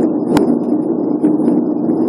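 Steady drone of an airliner cabin in flight, engine and airflow noise, with a single sharp click about a third of a second in.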